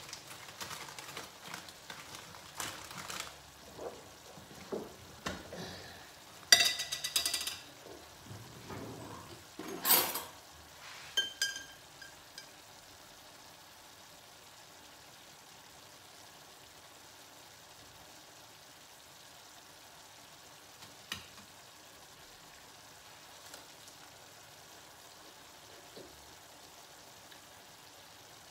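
Handling of crisp lettuce and a glass jar of mayonnaise: irregular crackling and rustling of the leaves, a fork clicking and scraping in the jar, and a couple of sharper knocks, the loudest about six and a half and ten seconds in. After about twelve seconds there are only a few faint clicks.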